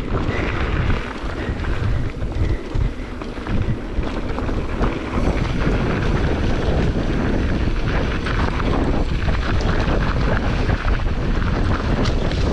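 Wind rushing over the microphone of a mountain bike moving fast down a trail, with the tyres crunching over loose dirt and short rattles from bumps. It turns steadier and a little louder about five seconds in.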